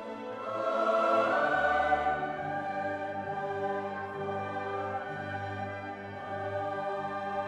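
Background music: slow, sustained orchestral chords with choir-like voices, swelling louder about a second in.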